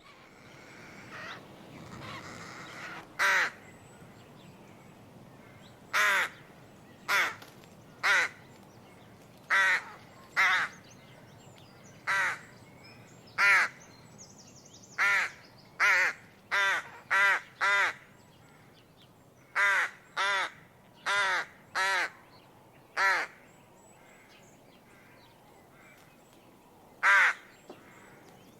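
Rook (Corvus frugilegus) cawing: a string of about nineteen short single caws at irregular intervals, sometimes two or three in quick succession, with a pause of a few seconds before the last. A fainter, softer sound fills the first few seconds before the first caw.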